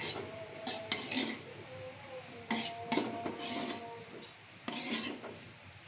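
Metal ladle knocking and scraping inside a large metal wok while the last of the sauce is scooped out, about five knocks, the wok ringing briefly after several of them.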